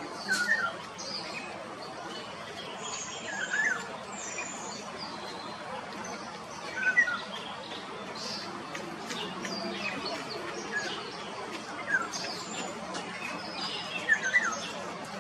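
Birds chirping: short chirps every few seconds over a steady outdoor hiss, with higher, thinner notes in between.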